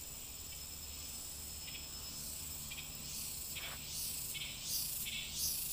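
Steady high-pitched drone of forest insects, with rhythmic crunching footsteps on a dry trail at a walking pace starting about halfway through and growing louder.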